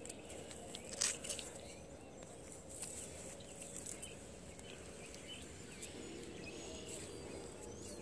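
Slow footsteps and handling noise on plowed soil, with one sharp click about a second in. A few faint bird chirps come in during the second half.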